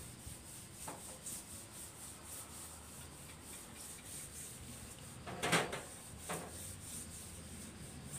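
Faint rubbing and scraping noises, with a louder brief rasp about five and a half seconds in and smaller ones about one and six seconds in, over a steady thin high hiss.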